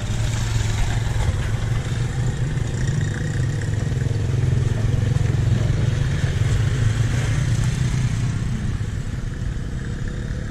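Motorcycle engine running steadily, a low drone with street noise over it, swelling a little in the middle and easing toward the end.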